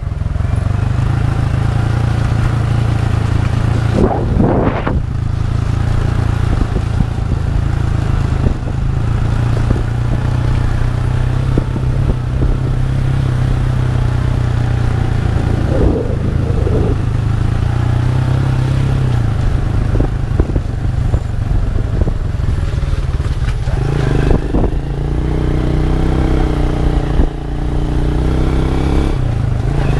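Honda EX5 underbone motorcycle's single-cylinder four-stroke engine running steadily on the move, with occasional knocks and rattles. About three-quarters of the way through, the engine note climbs higher for several seconds, then drops back near the end.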